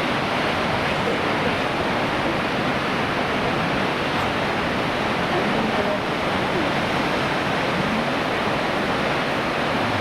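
Kegon Falls waterfall: a steady, unbroken rush of falling water.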